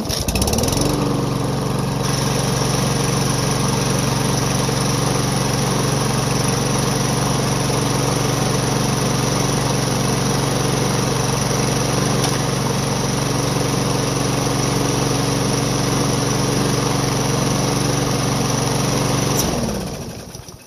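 Single-cylinder Briggs & Stratton lawn mower engine starting on a pull of its newly replaced recoil starter rope. It revs up within about a second and runs at a steady speed. Near the end it is shut off and spins down to a stop.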